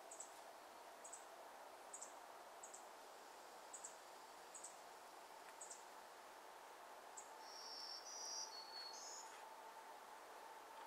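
Near silence with faint, thin, high-pitched wildlife chirps repeating about once a second, and a short, louder warbling call about seven and a half seconds in.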